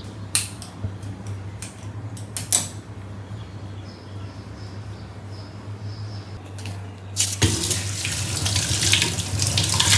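A few light clicks and knocks, then about seven seconds in a water tap is turned on and water runs steadily into a sink, over a low steady hum.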